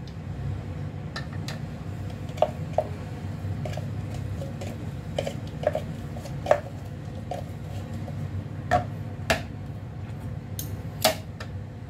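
A metal spoon clinking against a plastic food-processor bowl and a peanut butter jar as peanut butter is scooped in and scraped off. About a dozen sharp clicks are scattered over a steady low hum.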